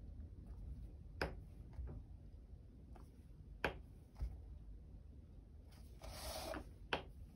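Three faint, sharp taps of a dotting tool, a couple of seconds apart, as it is dipped in a paint pot and dabbed on a canvas, with a brief rubbing sound shortly before the last tap.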